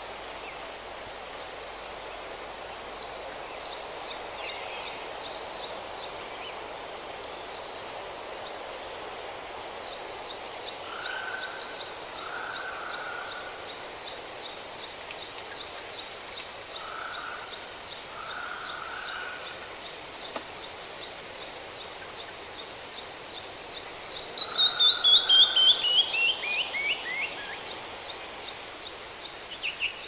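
Songbirds singing over a steady hiss: a long run of fast, repeated high notes, a few softer lower phrases, and, about three-quarters through, the loudest call, a quick series of notes falling in pitch.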